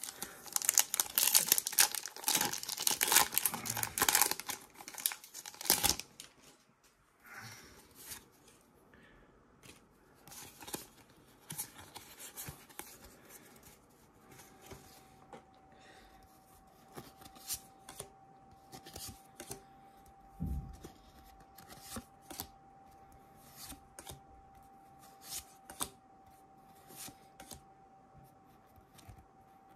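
Foil booster-pack wrapper torn open and crinkled for about six seconds, then much quieter soft clicks of playing cards being slid off the stack one at a time, roughly once a second.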